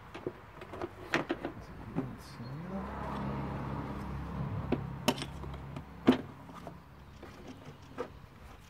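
Hard plastic clicks and knocks as the air filter housing lid of a VW Polo 6N2 is set and pressed back into place by hand, the sharpest knock about six seconds in. A vehicle engine hums in the background from about two and a half seconds in to about six seconds in, rising briefly at its start.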